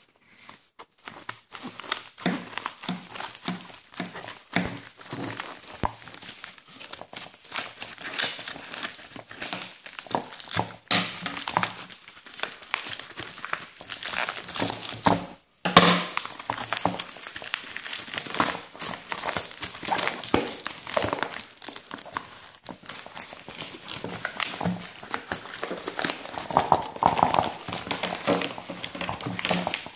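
A plastic courier mailer being handled and opened by hand: continuous irregular crinkling and crumpling of the packaging, with a brief pause about halfway and then a loud crackle.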